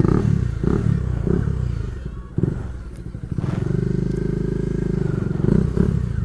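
Motorcycle engine and loud exhaust pulling hard. The note is uneven at first, then holds a steady pitch from about halfway through.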